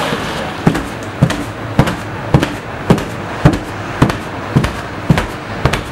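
Steady rhythmic chopping with a knife on a cutting board, about ten strokes at close to two a second.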